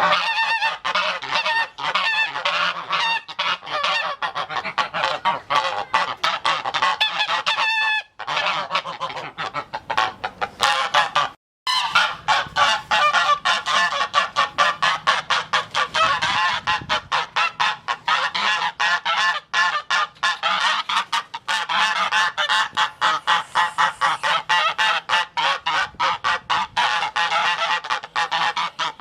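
Geese honking in rapid, continuous, overlapping calls, broken by a short gap about 8 seconds in and a brief silence about 11 seconds in.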